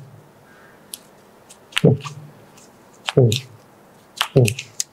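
Sharp joint cracks from a manipulation of the arm and shoulder, two of them, about two and four seconds in, amid short vocal sounds. The therapist then calls it a lot of cracking.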